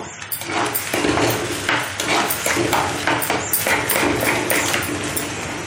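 Steel slotted spoon stirring and scraping thick semolina kesari around a clay pot in repeated strokes, working in freshly added sugar.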